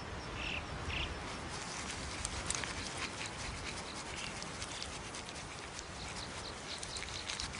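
Bearded vultures dust-bathing in dry earth: scattered scratching, rustling and patter of feet and feathers in the soil, with a couple of short high calls about half a second and one second in.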